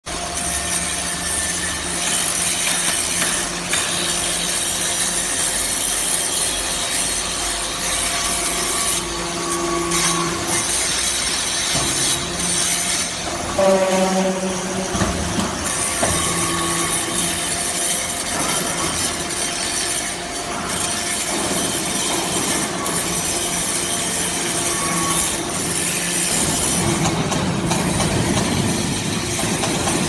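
A hydraulic metal-chip briquetting press and its chip conveyor running, with metal turnings moving on the conveyor. It makes a steady, hissing, grinding machine noise over a hum, with a brief metallic squeal about halfway through.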